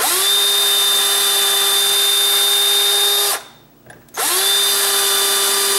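Skil power drill spinning up and running at a steady whine for about three seconds, stopping, then starting again about four seconds in, as a very small bit pre-drills a pilot hole into a wooden cabinet face frame.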